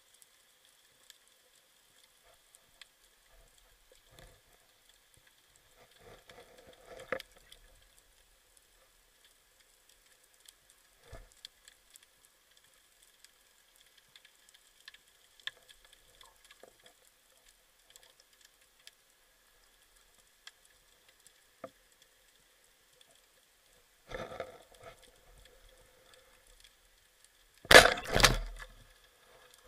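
Underwater sound: scattered faint clicking and crackling over a faint steady high whine, then near the end a speargun firing, a loud sudden snap followed by a second burst as the spear strikes.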